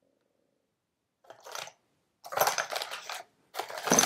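A cardboard ammunition box and a paper separator slip rustling and scraping as a hand lifts the slip off a row of cartridges, in three short bouts after about a second of silence.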